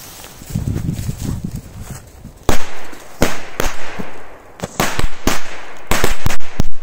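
A pile of leftover Korsar-1 firecrackers, relit after failing to go off in a machine-gun belt, exploding. About two and a half seconds in they start going off in a ragged string of about a dozen sharp bangs at uneven intervals, packed closest together near the end.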